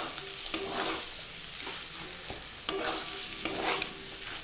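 Flat steel spatula scraping and turning a spiced potato-and-cauliflower mixture in a steel kadhai, with several sharp scrapes against the pan over a steady frying sizzle.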